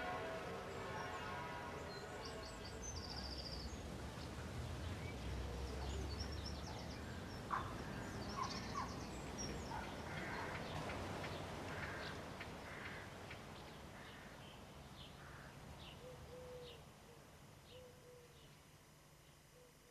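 Church bells dying away in the first couple of seconds, then outdoor ambience with birds chirping and calling and a low rumble, the whole fading out toward the end.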